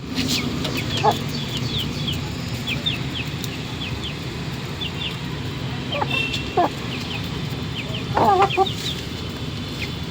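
Aseel chickens clucking in short calls, a few seconds apart with a quick cluster near the end, over the steady fast chirping of small birds.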